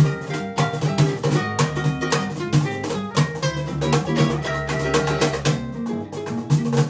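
Acoustic swing jazz trio of ukulele, upright double bass and cajon playing together. The ukulele picks a quick run of plucked notes over a plucked bass line and a light hand-drummed cajon beat.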